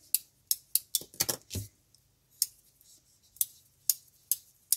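Shuttle tatting at work: a plastic tatting shuttle and thread making short, sharp clicks and ticks, about a dozen at irregular spacing, as double stitches are thrown and snugged into a chain.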